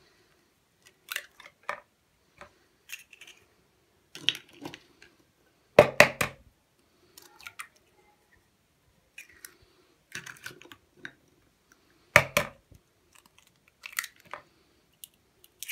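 Eggs being cracked one after another into a plastic mixing bowl: short sharp knocks of shell on the bowl, loudest about six and twelve seconds in, with lighter clicks and crunches of shell between.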